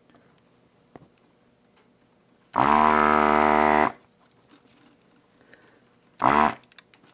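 Handheld desoldering gun's vacuum pump buzzing steadily in short bursts as it sucks solder from a capacitor's joints: one burst of about a second and a half, and a shorter one near the end.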